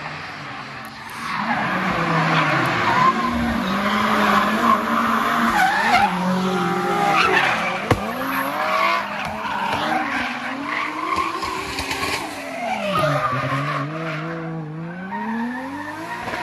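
Two cars driven hard through a bend, engines revving up and down repeatedly and tyres squealing as they slide, leaving tyre smoke. Near the end one engine note climbs steadily as a car accelerates away.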